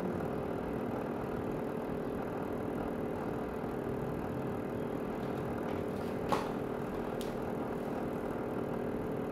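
Upright garment steamer running with a steady hum and hiss, its tone unchanging, with one sharp click about six seconds in.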